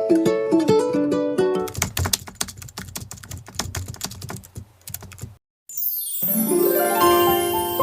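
Intro music: a tune of short plucked notes gives way to a few seconds of rapid clicking like keyboard typing. After a brief cut to silence, a bright rising chime sweep leads into a new tune.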